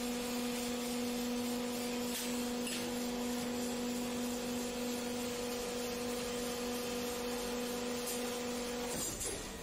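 Crank-driven brass-hinge forming machine running with a steady electric hum, which cuts off about nine seconds in.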